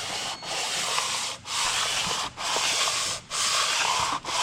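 Sandpaper on a sanding block being pushed back and forth by hand across an engine block's deck surface: a rasping hiss in long even strokes, about one a second with a short break between each. The deck is being sanded flat and flush to take out warpage and the edge left where the head gaskets kept blowing.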